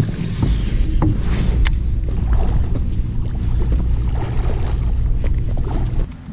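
A hooked bass splashing and thrashing at the water's surface as it is reeled up beside the boat, with a few sharp clicks and a strong low rumble on the microphone. The rumble drops away about six seconds in.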